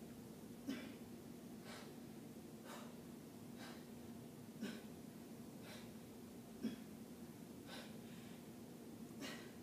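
A woman breathing heavily through an exercise set, about one breath a second, in time with repeated shoulder raises, over a steady low hum. Three soft thumps stand out, the first near the start, the others about halfway and two-thirds through.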